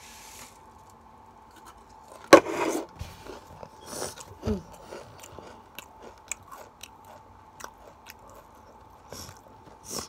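Pringles chips being crunched and chewed with the mouth open, after a faint rustle of crumbs tipped from the tube into the mouth at the start. A sharp loud crunch about two seconds in, then scattered smaller crunches and smacks.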